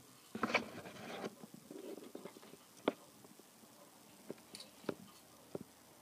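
A parrot playing with its hanging wooden toys. A brief burst of rattling and scraping comes about half a second in, then scattered sharp taps and clicks of wooden pieces.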